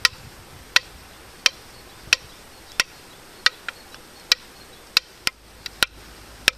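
Hand-carved wooden sound stick (Klangholz) hanging from a cord, struck with a short wooden stick: about a dozen sharp wooden knocks, each with a brief ringing tone, at first about one every 0.7 s, then quicker and uneven near the end.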